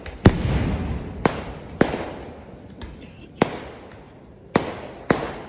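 Fireworks going off: about six sharp bangs at uneven intervals, the first and loudest followed by a low rumbling echo.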